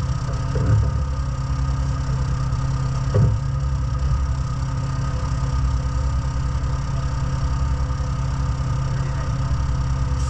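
An engine running steadily at idle, with a couple of light knocks about a second and three seconds in.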